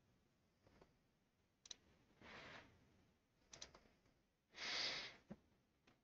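Near silence with a few faint computer clicks and two soft breaths, the second and louder one about four and a half seconds in.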